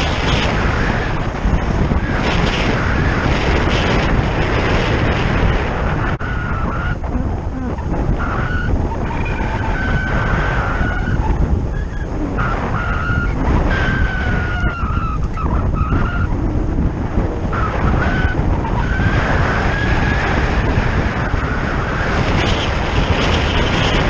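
Wind rushing over the microphone of a camera on a moving bike, mixed with road and tyre noise. There are short wavering whistles now and then in the middle.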